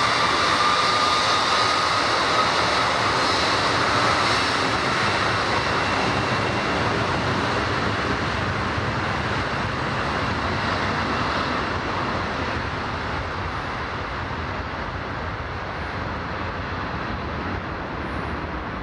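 Airbus Beluga XL's twin Rolls-Royce Trent 700 turbofans running at taxi power: a steady jet rush with a whine that rises slightly in the first few seconds, fading gradually as the aircraft taxis away.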